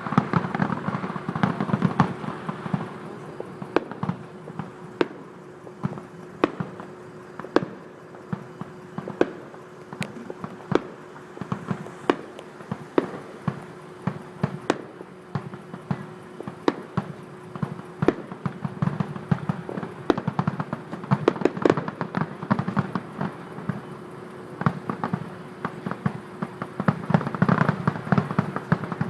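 Fireworks display going off: a run of irregular bangs and pops, some sharp and some dull, over a low rumble, with a steady hum underneath.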